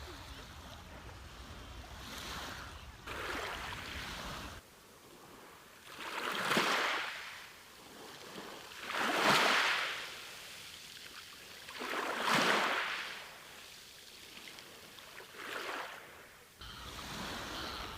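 Sea waves washing onto a beach, each one swelling and fading, the three biggest about three seconds apart near the middle. A low wind rumble on the microphone stops abruptly early on and returns near the end.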